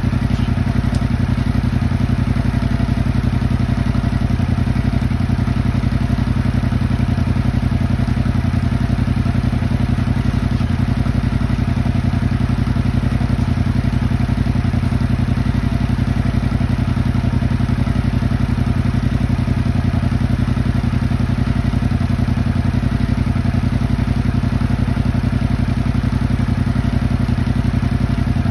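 Yamaha crossplane motorcycle engine idling steadily through its stock exhaust, warming up after a cold start following winter storage.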